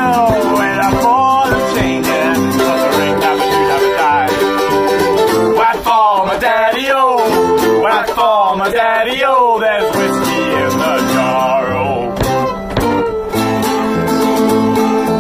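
Background music: an acoustic folk band playing guitars.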